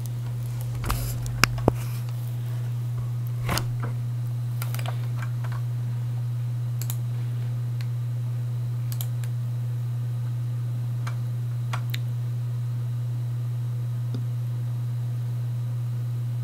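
A steady low hum, with scattered small clicks and knocks; the two sharpest come about a second and a half in.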